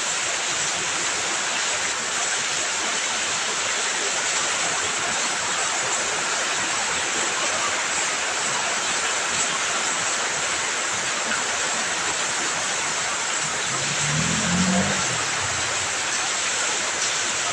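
Heavy rain falling steadily, a dense even hiss. Near the end a brief low rumble rises and fades under it.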